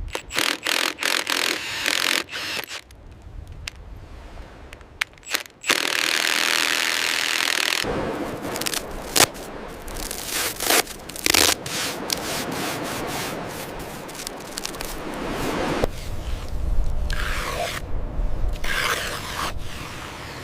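Scraping and rubbing work noises, broken up by sharp clicks and knocks, with two longer stretches of steady scraping.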